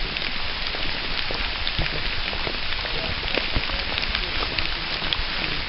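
Steady rain falling on wet leaves, a dense even hiss dotted with many small drop clicks.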